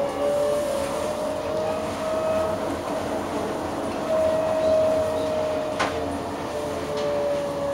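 Basel tram running along its track, heard from inside the car: a steady rumble with an electric drive whine whose pitch rises gently, holds, then falls off near the end. A sharp click about six seconds in, and a fainter one a second later.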